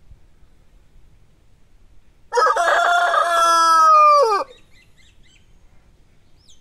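A rooster crows once, a single cock-a-doodle-doo about two seconds long that starts a little over two seconds in. The pitch drops away at the end of the crow.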